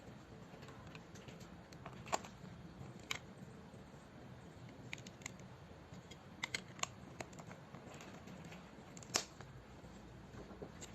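Scattered sharp clicks and taps of small objects being handled, a few bunched together around six to seven seconds in and the loudest about nine seconds in.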